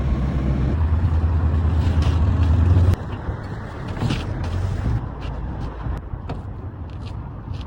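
A vehicle engine runs with a steady low rumble that cuts off suddenly about three seconds in, with a click. After that come quieter background noise and scattered clicks and knocks.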